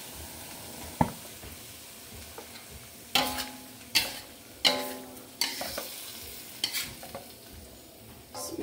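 A metal spatula stirring and scraping in a steel wok of eggs in chili sauce, with three ringing clanks against the wok about three to five seconds in, over a faint sizzle. The gas has just been turned off.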